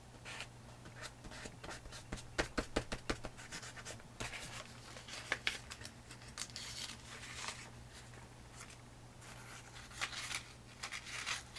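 A small tool scraping and scratching through blue craft paint on an old book page, in a quick run of short strokes and then longer rough scrapes. Loose book-paper sheets rustle as they are handled near the end.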